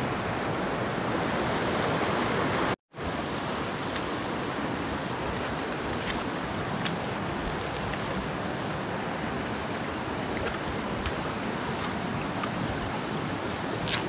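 Creek water rushing over rock cascades, a steady rushing hiss. It drops out for an instant about three seconds in, then carries on at the same level with a few faint clicks.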